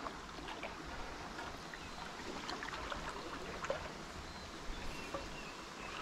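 Quiet river ambience around a canoe: faint even water noise with a few small, soft clicks and taps.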